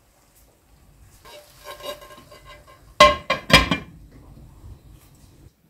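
A glass serving platter being set down over a metal rice pot: it rattles and scrapes on the rim with a faint ringing, then knocks sharply against the pot twice, about half a second apart, a little over halfway through.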